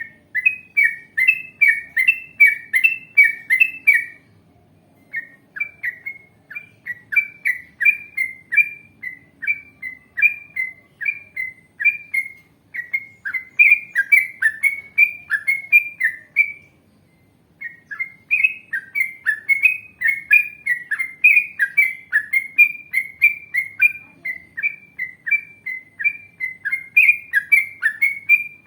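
Yellow-vented bulbul singing long runs of rapid, repeated bubbly chirps, with two brief pauses.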